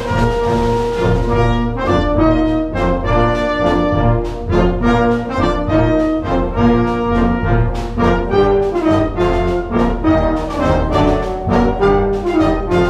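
A concert wind band playing: clarinets, saxophones and brass together in a busy passage of changing chords and repeated notes.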